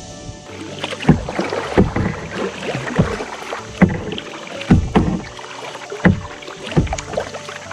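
Double-bladed kayak paddle strokes, the blades dipping and splashing in the water about once a second in an even rhythm.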